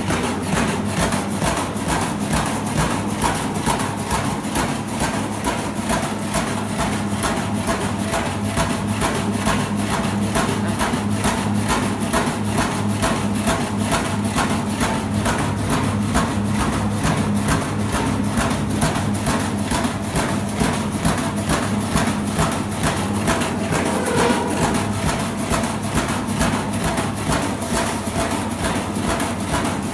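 Quẩy dough-cutting machine running, a loud steady mechanical clatter of rapid, evenly repeated strokes that starts abruptly.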